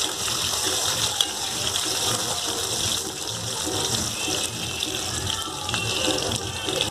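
Potato wedges sizzling as they fry in hot mustard oil in a kadai: a steady hiss, with a few light taps of a metal spatula turning them.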